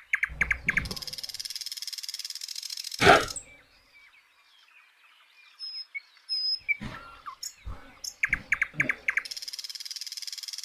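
A bird singing a repeated phrase: a quick run of separate chirps running into a fast high trill of about two and a half seconds, heard twice. Low knocks and thuds from handling come in between, the loudest about three seconds in.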